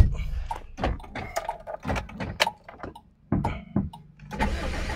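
A sharp thump, then scattered clicks and knocks, and about four seconds in the 2006 Toyota Corolla Altis's engine starts on the first crank and settles into a steady idle. The quick start and steady running come with its manifold absolute pressure sensor plugged back in.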